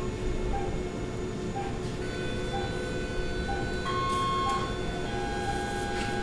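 Hospital machine ambience: short electronic beeps about once a second over a steady hum of held electronic tones and low rumble. A brief higher beep tone sounds about four seconds in.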